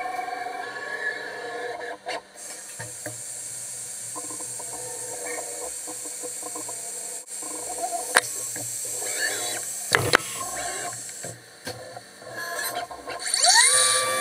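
5-axis CNC milling machine running, with a steady hiss, a few held machine tones and scattered clicks of cutting. Near the end a spindle whine rises quickly in pitch and then holds steady.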